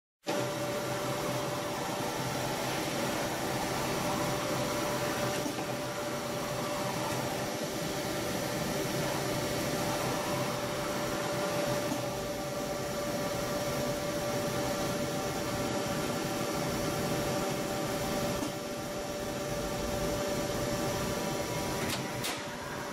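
Mazak Multiplex 4200 twin-spindle CNC lathe running: a steady machine hum with a constant mid-pitched whine, and a short sharp click near the end.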